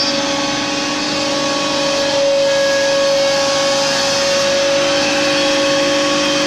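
CNC router spindle carving a relief design into a board, a steady high whine over a strong hiss of cutting and dust extraction through the hose on the head. The whine grows stronger about two seconds in.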